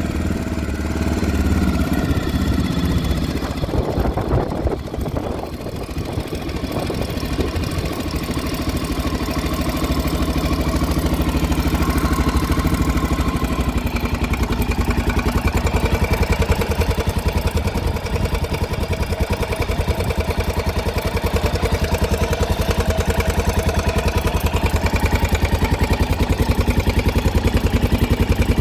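Honda NX650 Dominator (RD08) air-cooled single-cylinder engine running with a rattle, which the owner points out as the thing to hear. The engine note changes unsteadily about four to six seconds in, then settles into an even, fast pulsing run.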